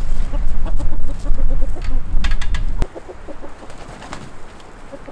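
Backyard chickens clucking with short, repeated calls. A loud low rumble runs under them and stops abruptly just under three seconds in.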